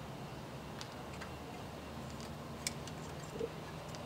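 A few light, separate metallic clicks of hand tools on the Toyota 4K engine's valve gear: a spanner, screwdriver and feeler gauge working a rocker-arm adjusting screw and locknut while the valve clearance is set. A faint low hum underneath.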